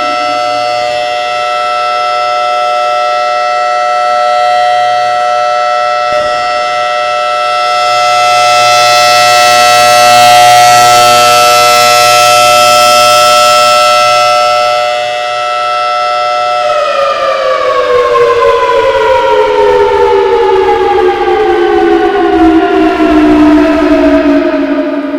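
Federal Signal Thunderbolt 1003 outdoor warning siren sounding its steady alert tone, swelling louder for a few seconds midway. About two-thirds of the way through, the pitch falls steadily as the siren winds down at the end of the signal.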